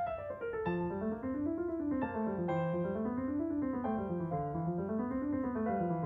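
Background piano music: flowing runs of notes that climb and fall in a repeating wave about every two seconds.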